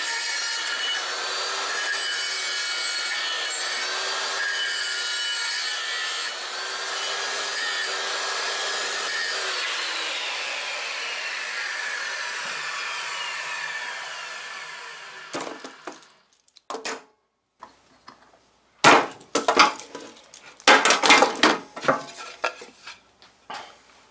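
Power saw running and cutting wood for a hive-box handhold. It is switched off about ten seconds in and spins down with a falling whine over several seconds. Then come a few sharp wooden knocks and clatter as the boards are handled.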